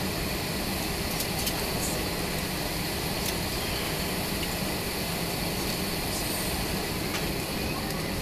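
Steady cabin noise of an Airbus A320neo taxiing, its CFM LEAP-1A engines at low power: a low rumble and even hiss with a faint high steady whine.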